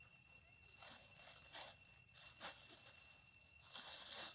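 Thin plastic bag crinkling in short rustles as a hand rummages through it, loudest near the end. A steady, high insect drone runs underneath.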